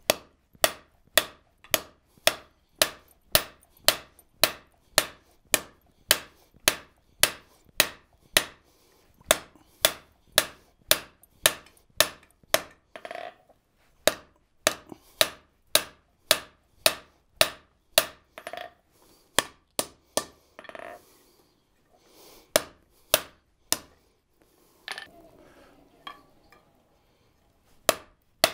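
Hand hammer striking red-hot steel on an anvil, sharp blows about two a second, drawing out the reins of a pair of blacksmith's tongs. There are a few short breaks in the blows, the longest near the end.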